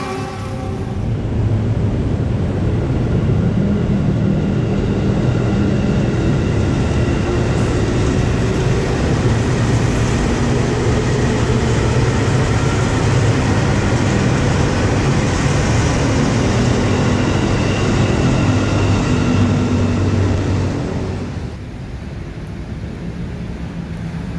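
Passenger trains running past at speed: a steady rumble of wheels on rails with a faint whine, dying away about 21 seconds in.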